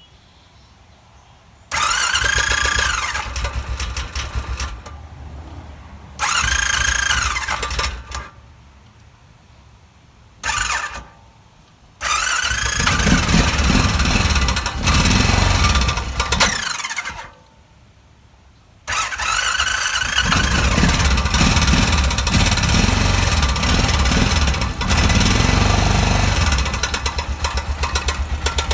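A 2006 Honda Rincon ATV's single-cylinder engine cranked over on its electric starter several times with a starter whine, catching briefly, then starting and running with an even rhythmic ticking. That ticking is the cam chain tensioner at its maximum extension, not the piston banging.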